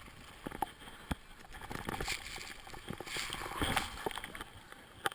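Rustling and scraping of a fallen skier's clothing and snow against the body-worn camera as the skier shifts about on the ground, with a few sharp knocks on the camera housing.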